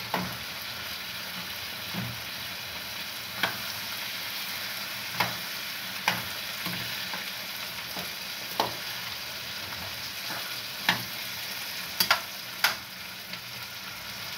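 Sausage in tomato and onion sizzling steadily in a frying pan on a gas stove, stirred with a serving spoon that knocks against the pan every second or two.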